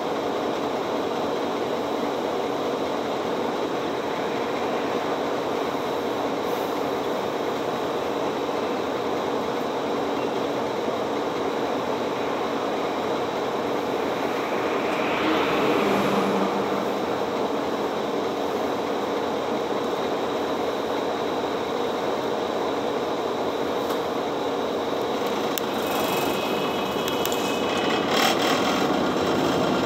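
City bus's engine idling, heard from inside the passenger cabin as a steady hum and rumble while the bus stands still. A louder swell of noise comes and goes about halfway through. Near the end there are some clicks and the sound grows as the bus pulls away.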